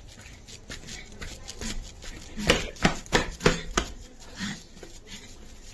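Footsteps hurrying on a concrete lane: a run of quick, irregular taps, with a cluster of about five heavier strikes in the middle.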